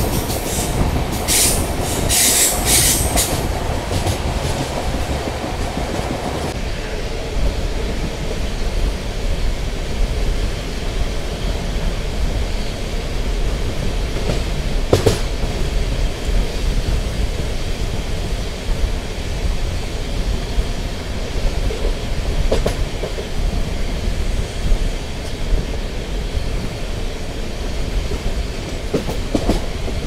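Passenger train running round a curve, heard from an open coach door: a steady rumble of wheels on track, with high screeching streaks in the first few seconds and a single sharp clank about halfway.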